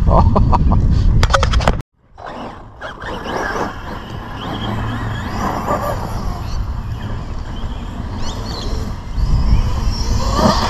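Arrma brushless electric RC car being driven over grass, its motor whine mixed with tyre and chassis noise and wind on the microphone. The sound drops out briefly about two seconds in, then runs on more quietly and grows louder again near the end.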